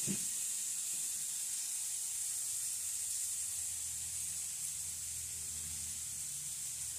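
Steady high hiss of green beans sizzling in a hot pan on the stove, with a faint low hum underneath.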